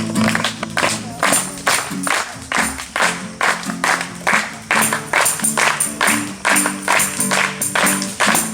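A group clapping hands in a steady beat, about two to three claps a second, over held instrumental chords, with tambourine jingles joining about five seconds in: the opening of a praise song.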